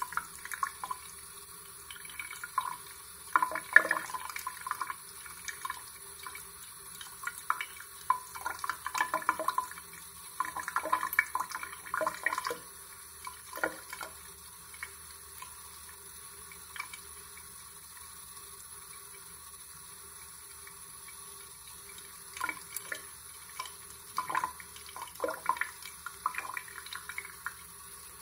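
Thin stream of tap water running into a sink and over a hand and a wet bird. Bursts of splashing and trickling come and go, with a calmer stretch of several seconds in the middle.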